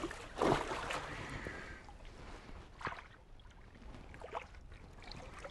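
Water splashing and sloshing against the side of a boat as a large fish moves in a landing net held alongside the hull. One louder splash comes about half a second in, followed by quieter lapping and a couple of small splashes.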